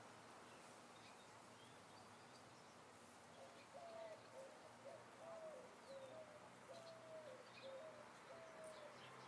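A bird calling a run of about ten short, evenly spaced notes, beginning about a third of the way in, over faint steady ambient hiss, with a few faint high chirps.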